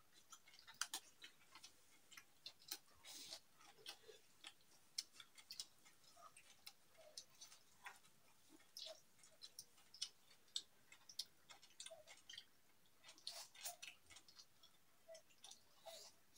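Faint, irregular small clicks and smacks of people eating goat meat by hand: chewing, and fingers working food on metal plates.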